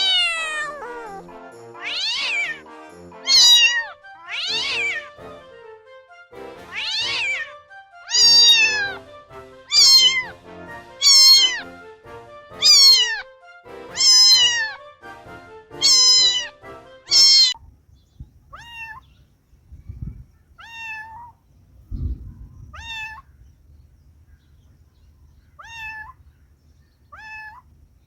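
Domestic cat meowing over and over, about one meow every second or so. After about 18 seconds the meows turn much fainter and shorter.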